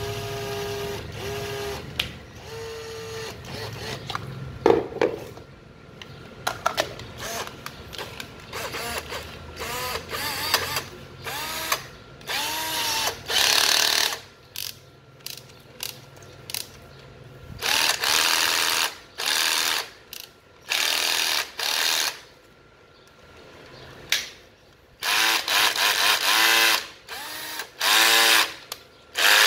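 Ryobi 12 V cordless driver drill being test-run in short trigger pulls. Each time the motor spins up and winds down again, with a few longer runs in the middle and near the end.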